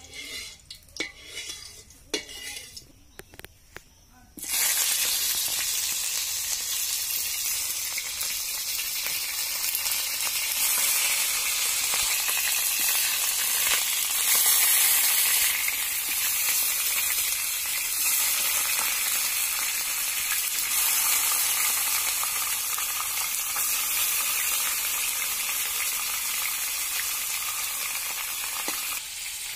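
Pangas catfish steaks frying in hot oil in an iron wok. A few light clicks and taps come first, then a loud, steady sizzle starts suddenly about four seconds in, as the pieces hit the oil.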